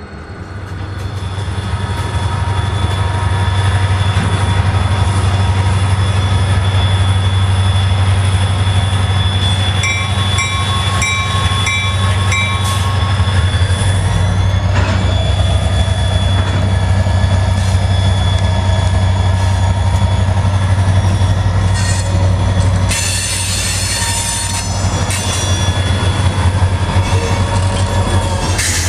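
EMD 645 diesel locomotive prime mover running, its deep drone building in loudness over the first few seconds and then holding steady. About ten seconds in, five short beeps sound, and near the end there is a brief hiss.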